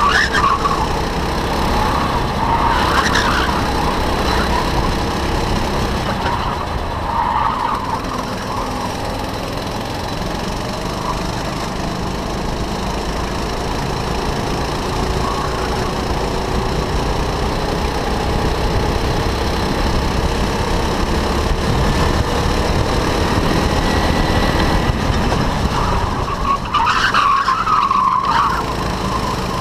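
Go-kart engine running hard at racing speed, heard from on board the kart, its pitch slowly rising and falling through the lap. Tyres squeal briefly in the corners, loudest near the end.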